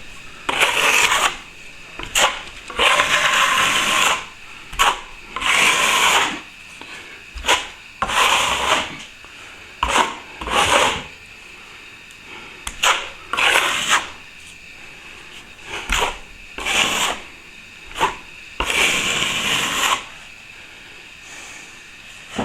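A plasterer's scraper blade scraping freshly applied plaster back flat over a ceiling joint repair, in a dozen or so uneven rasping strokes, some short and some about a second long.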